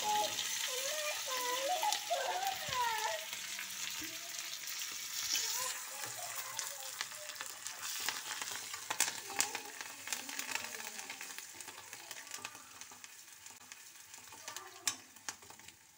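A tempering of cashews, ginger, pepper, cumin, curry leaves and asafoetida sizzling in hot ghee in a kadai as a spatula stirs it, with now and then a sharp scrape or clink of the spatula on the pan. The sizzle dies down gradually.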